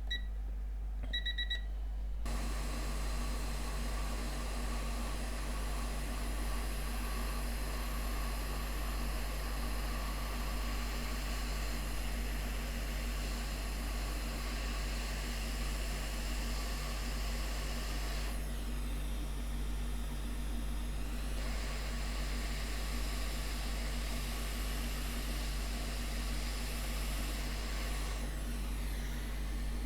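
Hot air rework station: a couple of short electronic beeps, then about two seconds in its blower starts and runs with a steady hiss and low hum as the board is heated to reflow the solder. The hiss dulls briefly twice, around the middle and near the end.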